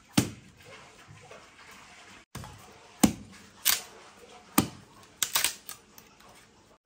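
A series of sharp knocks, about six of them spaced irregularly, with the sound cutting out briefly about two seconds in.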